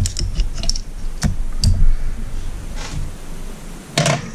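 Light metallic clicks and ticks of a small pick working at a piston on the crankshaft of a Mercury Thunderbolt 500 outboard, with a louder clatter of tools on the bench about four seconds in.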